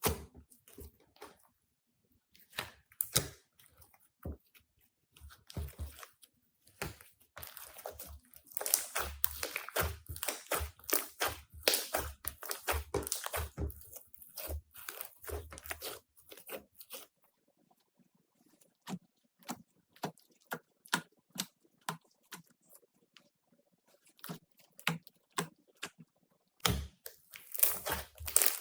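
Slime being squeezed and pressed by hand, giving a string of crackles, pops and squelches. The crackling comes thick and fast in the middle, thins to scattered pops, then picks up again near the end.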